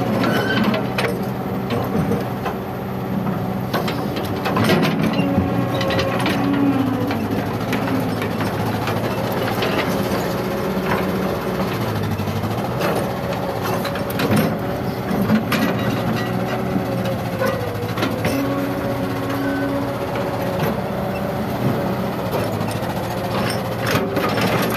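Kobelco crawler excavator's diesel engine running steadily under hydraulic load as its bucket digs through rocky soil, with frequent knocks and clatter of stones against the bucket.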